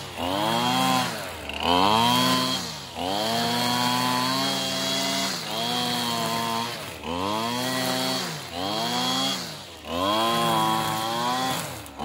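Husqvarna 225L two-stroke string trimmer engine revving up and easing off again and again, about every second and a half, as its line cuts grass. It takes the throttle cleanly, running well on a newly replaced carburetor after a tune-up.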